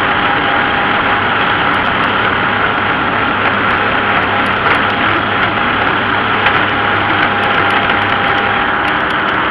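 Farm tractor engine running steadily as the tractor drives along the road.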